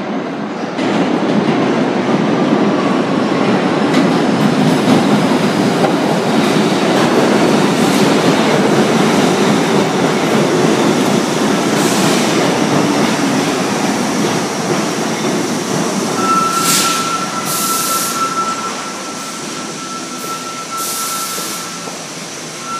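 R62A subway train pulling into the station: a loud rumble of steel wheels on rail that swells about a second in, then eases as it slows. In the last several seconds a steady high squeal sounds along with a few short hisses.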